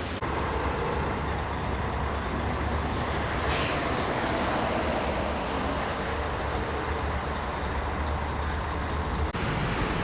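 Motorway traffic passing: a steady rush of engines and tyres over a low hum, with one vehicle swelling louder about three and a half seconds in. The sound changes abruptly near the end.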